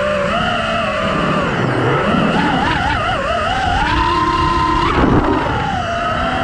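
Five-inch FPV quadcopter's Hypetrain 2306 2450kv brushless motors spinning 4.8-inch props, picked up by a mic on board: a loud whine whose pitch swoops up and down with the throttle, with a quick wavering in the middle and a short loud burst about five seconds in.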